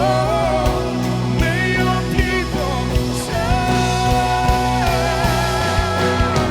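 Live worship band playing a song: drums keep a steady beat under long held melody notes.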